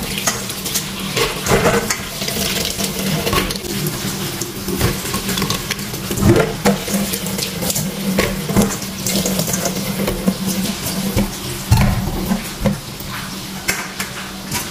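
Tap water running into a stainless steel sink over Brazilian pine nuts (pinhão) in a metal colander, with many small clicks and clatters as the hard-shelled seeds are rubbed and turned over by hand against the colander. A steady low hum sits underneath.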